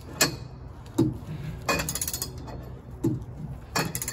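Socket ratchet worked with a steel-pipe cheater bar, snugging up a lag screw: a metallic knock about once a second, some strokes with a quick run of ratchet clicks.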